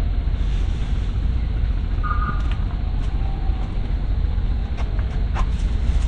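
Steady low outdoor rumble, with a short tonal sound about two seconds in and a few light clicks near the end.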